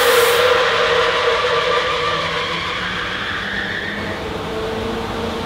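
Large supply fan of a theatre air handling unit running, a steady rush of air with a hum, drawing air through an open door on its suction side. A stage smoke machine's hiss cuts off about half a second in.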